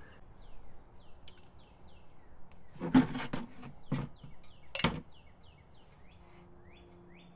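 Three sharp metallic clanks from hand tools, about a second apart, the first the loudest. A small bird chirps repeatedly in short falling notes throughout.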